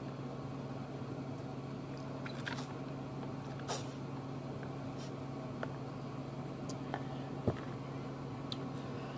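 A few short, soft clicks and mouth sounds as a drink is sipped through a straw from a plastic cup, over a steady low hum in the room.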